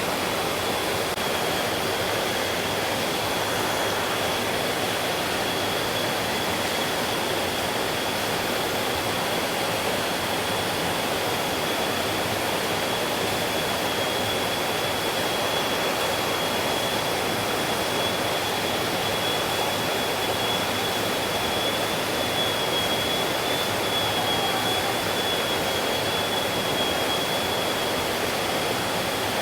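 Stream water flowing: a steady, even rushing with no breaks, with a thin, steady high tone running through it.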